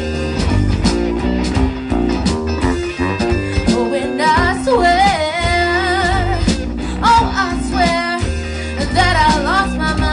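Live band playing: electric guitars, bass and drum kit, with a woman singing lead. About halfway in she starts holding long notes with a wide vibrato.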